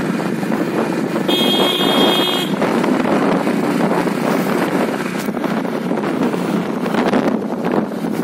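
Wind buffeting the microphone with road and engine noise from a two-wheeler riding at speed. A steady high tone sounds for about a second, a little over a second in.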